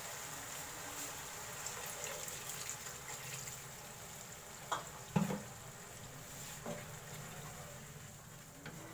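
Mutton karahi curry simmering in a nonstick wok, a steady bubbling hiss after water has been added. A few short knocks come about halfway through.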